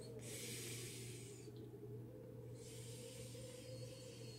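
Faint, airy breaths while puffing on a calabash pipe: two soft draws or exhales, each about a second and a half long, over a steady low electrical hum.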